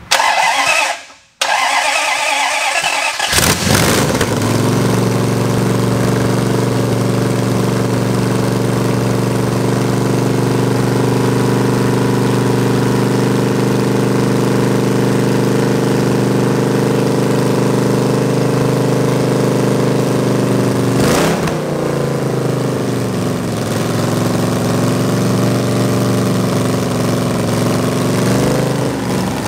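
A Chrysler 361 big-block V8 being started for the first time on a run stand. It cranks, cuts out briefly, cranks again and catches about three seconds in, then runs at a steady idle through open headers. It stumbles briefly past the two-thirds mark and wavers near the end.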